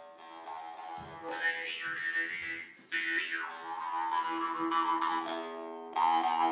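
Jaw harp (mouth harp) played as a steady twanging drone, its overtones shifting up and down as the player's mouth changes shape, with fresh plucks about three seconds in and near the end.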